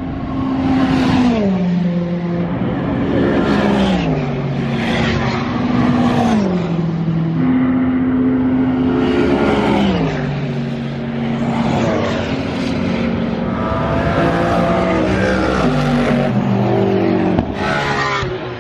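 Race cars passing one after another at high speed down a straight. Each engine note holds a steady pitch as the car approaches, then drops sharply as it goes by.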